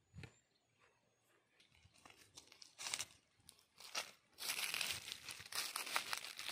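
Footsteps crunching on dry leaf litter and twigs: a few scattered crackles at first, then a close, continuous run of crackling steps from about four seconds in.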